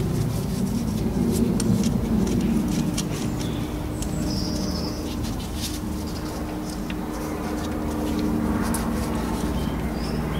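A low steady hum, with birds chirping briefly a few times and scattered light metallic clicks from a small Torx socket tool working on the camshaft adjuster's bolts.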